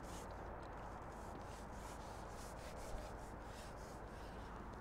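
Quiet outdoor background noise with soft, irregular rustling and a small tick about three seconds in.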